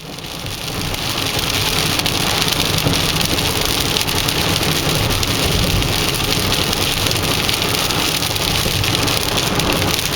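Heavy rain falling on a car, a dense steady patter of many fine drop hits over the low rumble of the car, fading in over the first second.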